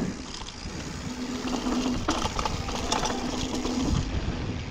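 Mountain bike coasting down a dirt trail, recorded on the rider's camera: wind rumble, tyres on dirt, rattles and knocks from the bike, and a steady buzz from the freewheeling rear hub.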